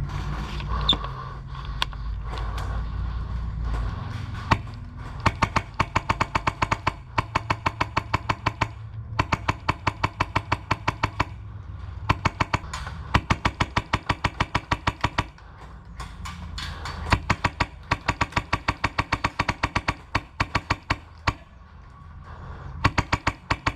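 Music with a fast, even clicking beat of about six clicks a second, which stops and starts again several times.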